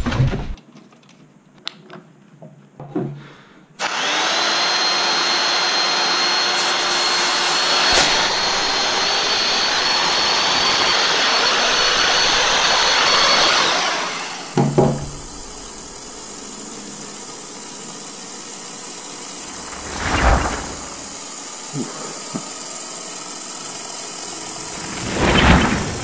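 A corded electric drill running steadily with a high whine for about ten seconds, then stopping. A quieter steady hum follows, broken by three thumps.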